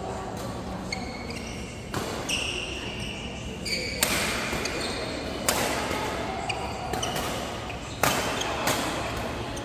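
Badminton rackets striking the shuttlecock in a doubles rally: sharp cracks every second or two, the loudest about two, four, five and a half and eight seconds in, ringing in the large hall. Sneakers squeak briefly on the court floor between shots.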